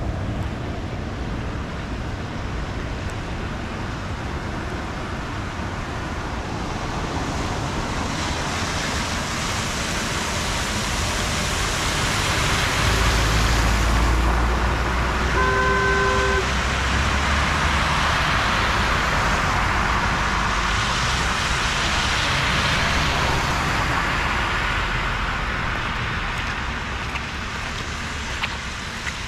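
Cars driving along a rain-flooded road, their tyres hissing through standing water, the noise swelling as traffic passes in the middle. A short car horn toot comes a little over halfway through.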